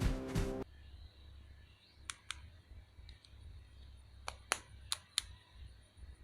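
Background music cuts off about half a second in. Then come scattered short, sharp clicks: a pair, two faint ones, and a louder group of four near the end.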